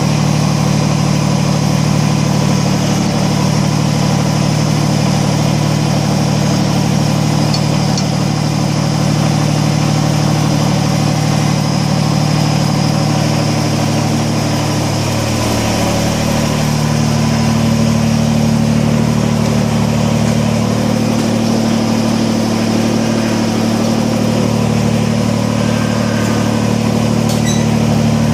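Kubota BX25D compact tractor's three-cylinder diesel engine running steadily, its note changing about halfway through.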